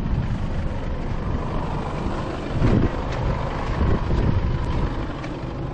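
Vehicle engine running, a steady low rumble.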